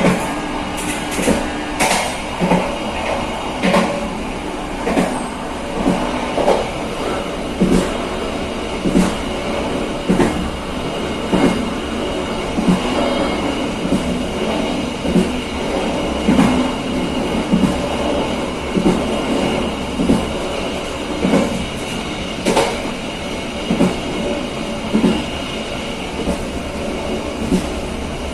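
Passenger train running at speed, heard from the last carriage: a steady rumble of the wheels on the rails with a clack about once a second, sometimes doubled, as the wheels pass over rail joints.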